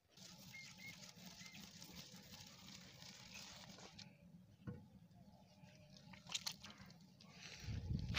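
Heavy stone potter's wheel turning on its pivot after being spun with a stick: a low, steady rumble, with a hiss over it for the first few seconds, a few light knocks, and a louder rumble near the end.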